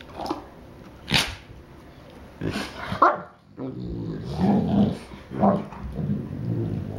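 Two Newfoundland dogs vocalising at each other as they play-wrestle on their backs: a few short, sharp calls in the first three seconds, then a longer run of low play growls.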